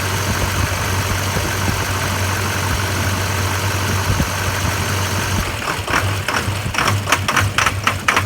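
2003 Chevrolet Duramax LB7 6.6-litre V8 turbodiesel idling on a cold first start. A little over five seconds in, the idle turns uneven and pulses several times a second: the rough, surging idle that the owner suspects comes from air being drawn into the fuel.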